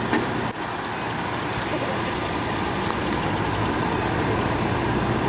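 Fire truck engine running steadily with a constant low hum under a dense wash of noise.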